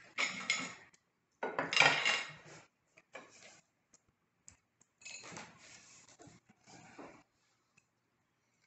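Metal cookware and dishes being handled: several clattering, scraping knocks of pans and utensils, the loudest about two seconds in, then smaller clinks.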